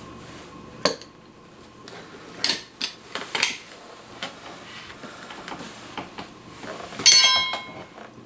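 Scattered knocks and scuffs as a prosthetic foot in its foam foot shell and protective sock is handled and fitted at the ankle. About seven seconds in comes the loudest sound, a short metallic clatter that rings briefly.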